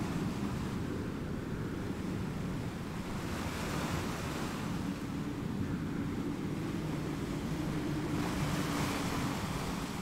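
Coastal outdoor ambience: a steady low wind rumble on the microphone, with a rushing noise that swells twice, about three seconds in and again near the end. A faint low hum runs underneath.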